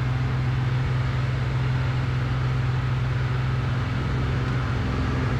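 Cessna T210N Centurion's turbocharged six-cylinder engine and propeller droning steadily at climb power, heard through the cockpit intercom audio feed. The engine is running full rich at high power for break-in after a top overhaul.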